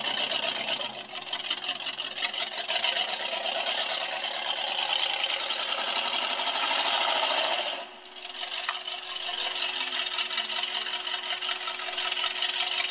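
Vehicle engine running under way with a dense, buzzing rattle. It drops away sharply for a moment about eight seconds in, as if off the throttle, then picks up again.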